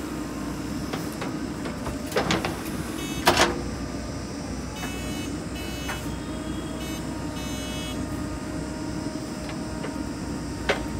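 JCB 3DX backhoe loader's diesel engine running steadily while the backhoe works. Two loud clanks come about two and three seconds in, and a couple of brief high whines follow later.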